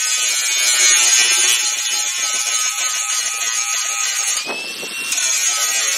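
Handheld power tool running at speed while grinding out solid aluminum rivets. It briefly slows and spins back up about four and a half seconds in.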